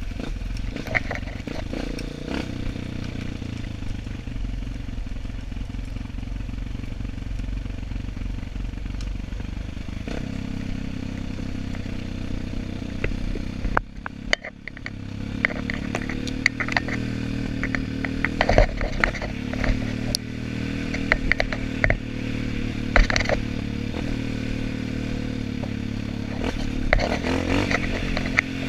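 Off-road trail motorcycle engine running at varying throttle, with scattered clatter and knocks. The engine note drops away briefly about halfway through, then picks up again.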